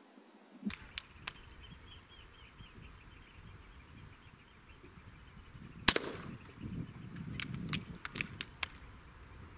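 A shot from an Air Arms S510 .177 PCP air rifle, a single sharp crack about six seconds in, followed by several lighter clicks. A few faint clicks come shortly after the start.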